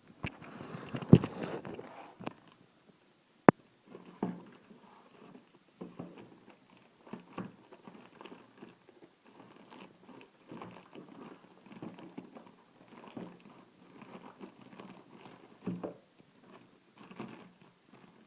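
Cardboard box and packaging being opened and handled by hand: a dense scraping burst with a sharp knock at the start, a single sharp click about three and a half seconds in, then irregular rustling and scraping of the packaging.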